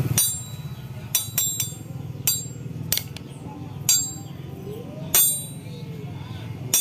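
Metal hand tools and engine parts clinking against each other: about nine sharp, ringing clinks at irregular intervals, over a steady low hum.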